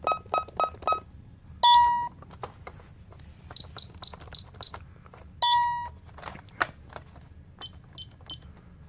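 Alarm-system keypads on a Vista 10SE security panel beeping at several different pitches. There are short key-press chirps, two longer lower tones, and a run of five quick high beeps a few seconds in, with a few clicks between.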